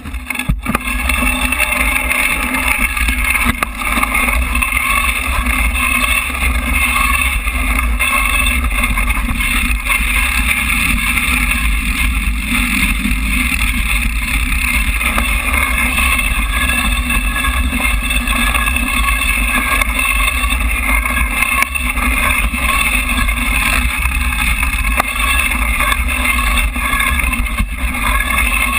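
Steady wind buffeting and rumble on a bike-mounted action camera moving fast along a dirt forest trail, with tyre and trail noise mixed in.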